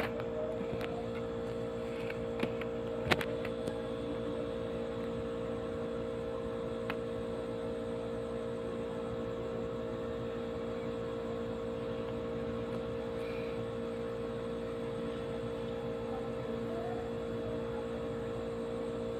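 A steady mechanical hum with fixed tones, with a few sharp clicks about three seconds in.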